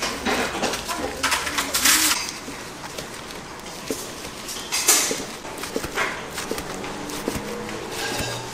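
Food-preparation clatter: scattered knocks and clicks with short rustling noises, loudest near the start and again about five seconds in.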